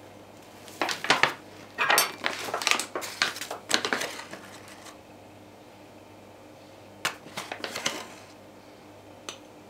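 A glass tumbler and a ceramic bowl clinking and scraping as a glassful of flour is scooped and poured in. The sounds come in short clusters of clicks and knocks, with a pause of a couple of seconds in the middle.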